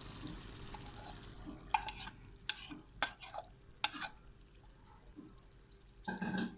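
Onions and tomato sauce sizzling softly in a frying pan, then a spoon stirring and clicking against the pan several times.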